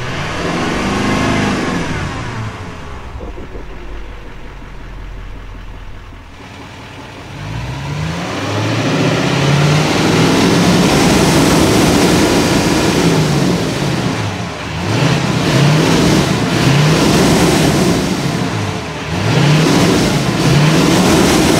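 Chevrolet Silverado 2500HD's Duramax 6.6-litre turbo-diesel V8 revved while standing still, heard at the exhaust. Engine speed rises and falls several times, with one long high hold in the middle.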